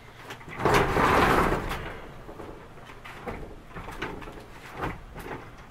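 A blanket-wrapped piano being shifted and pushed into place in a moving truck: a loud scraping rush about a second in, then a few short knocks.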